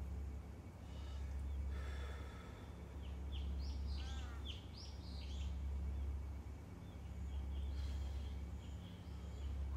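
Outdoor rural ambience: a crow caws about four seconds in and again near the end, while small birds chirp in quick falling notes through the middle, over a steady low rumble.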